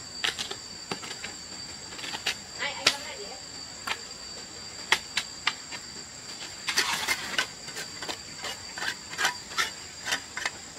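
Insects droning steadily at a high pitch, with scattered sharp clicks and knocks and a short noisy burst about seven seconds in.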